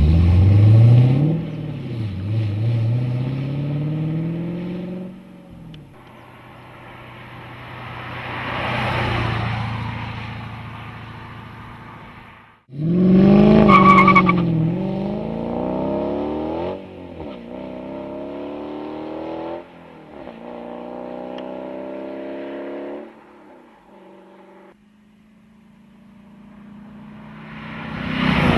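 Dodge Challenger with an MBRP stainless exhaust accelerating hard, the engine note climbing and dropping back at each upshift. It also drives past, swelling and fading, a couple of times.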